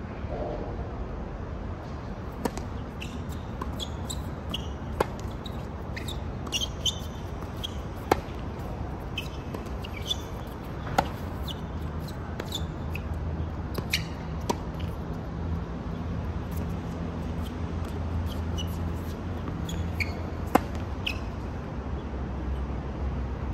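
Tennis rally on an outdoor hard court: sharp pops of racket strikes and ball bounces every second or few, the loudest about eight, eleven and twenty seconds in, with short high squeaks between them. A steady low traffic hum runs underneath.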